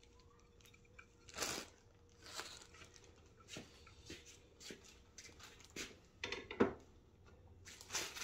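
Handling noises: plastic packaging rustling and parts being picked up and set down, in short scattered bursts, with a louder rustle about a second and a half in and a sharp knock past the middle.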